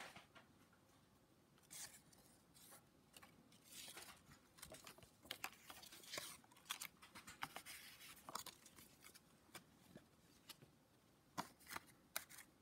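Faint rustling and scraping of a paper certificate card and a thin black sheet being handled and slid into a box, with many small clicks and taps.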